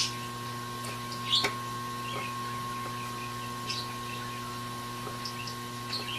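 Light clicks and scrapes of small tools and parts being handled at a laptop repair bench, the loudest a quick double click about a second and a half in. Underneath is a steady electrical hum with a thin, high, constant whine.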